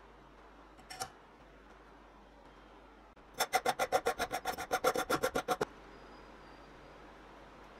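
Hand file rasping fast across a square aluminium tube held in a clamp: about twenty quick, short strokes over two seconds. A faint knock comes about a second in.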